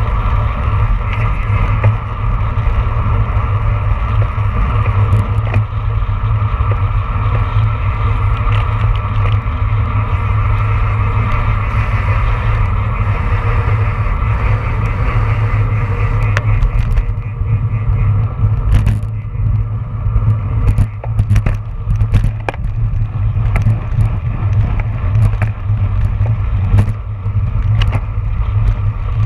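Wind buffeting the microphone of a camera mounted on a road bike's handlebars, with tyre and road vibration at about 25 mph, heard as a loud, steady low rumble. From a little past halfway, scattered sharp clicks and knocks come through.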